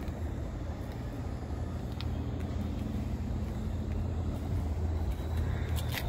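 A motor vehicle's engine running with a low, steady rumble, a little louder after a couple of seconds, with a light click about two seconds in and a couple of sharp clicks near the end.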